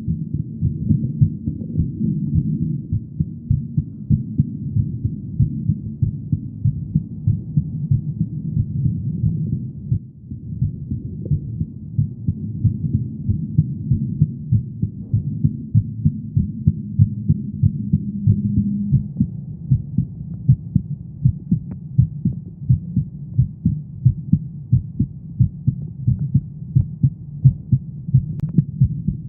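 A woman's heartbeat: a steady run of regular, low, dull beats, briefly softer about ten seconds in.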